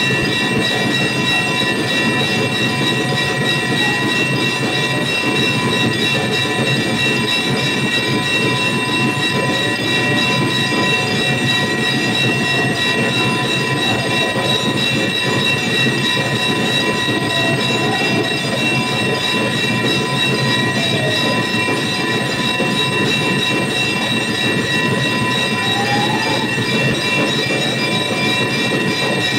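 Temple bells clanging without a break in a rapid, steady din, with several ringing metal tones held over the striking, as is usual while an aarti is performed.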